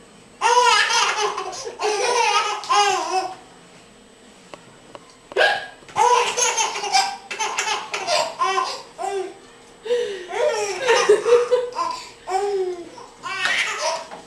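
An 8-month-old baby laughing hard in several long, high-pitched fits, set off by a woman's hiccup heard as a short sharp sound about five seconds in.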